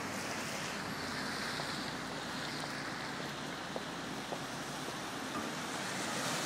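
Steady hiss of a rain-wet city street with traffic, swelling briefly about a second in.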